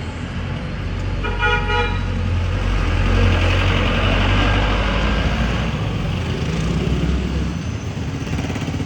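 Street traffic: a vehicle horn toots briefly about a second and a half in. Then a motor vehicle's engine passes close, growing louder to a peak a few seconds in and fading again near the end.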